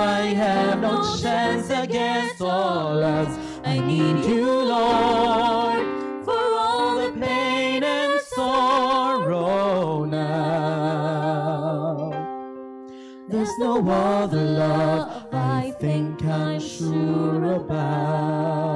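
A hymn sung with vibrato over a steady instrumental accompaniment, with a brief pause about twelve seconds in.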